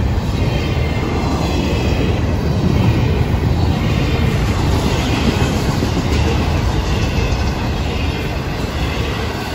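Intermodal freight cars, double-stack containers and then highway trailers on flatcars, rolling past close by: a loud, steady rumble and rattle of steel wheels on rail.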